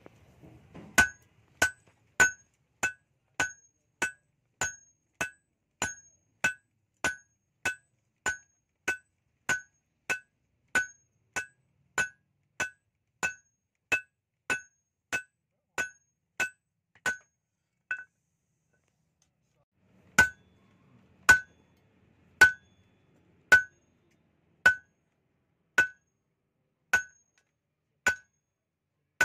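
Hand hammer blows ringing on an anvil while forging a khukri blade. The blows come steadily at about one and a half a second, stop for about two seconds a little past the middle, then go on at a slower pace of about one a second.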